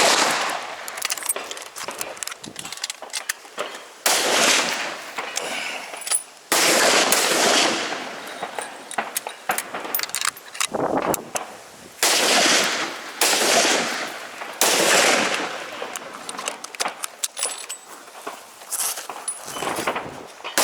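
Centrefire rifle shots on a range, six in all, spaced a second to several seconds apart, each sharp crack followed by a long rolling echo that dies away over a second or two, with small distant shots and clicks between.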